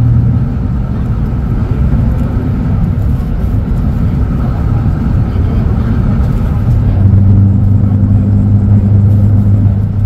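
Mercedes-Benz OM936 inline-six diesel of a city bus idling, heard from inside the bus by its open door: a steady low rumble with a hum that grows stronger about seven seconds in.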